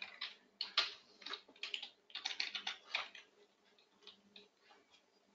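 Computer keyboard typing: a quick run of keystrokes for about three seconds, then a few faint scattered taps.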